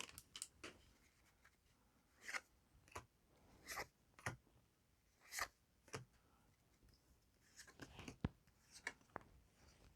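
Faint, short swishes and flicks of trading cards being slid and flipped one by one in the hands, about a dozen, at uneven intervals.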